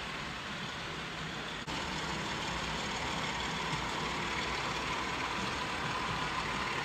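OO gauge model diesel locomotive and coaches running on the track: a steady mechanical rumble, with a faint whine coming in after a brief dropout about two seconds in.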